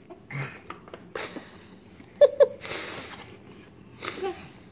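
Disposable diapers rustling and crinkling as they are handled and pushed into a plastic basket, in several short bursts. About two seconds in come two short, loud baby vocal sounds.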